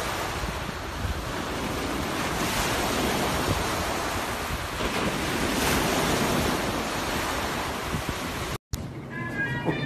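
Ocean surf washing onto a beach, a steady rushing that swells as waves break, with wind buffeting the microphone. It cuts off abruptly near the end and music begins.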